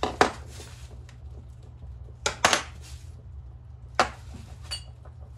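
Loose metal gun parts clacking and clinking as they are handled and set down on a table: a sharp clack right at the start, a close pair about two and a half seconds in, and one more about four seconds in that leaves a short metallic ring. A steady low hum runs underneath.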